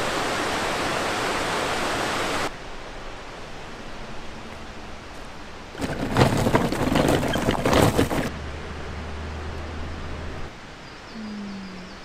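A steady rushing noise, cut off abruptly about two and a half seconds in, then quieter outdoor ambience with a couple of seconds of loud rustling and knocking in the middle and a low hum near the end.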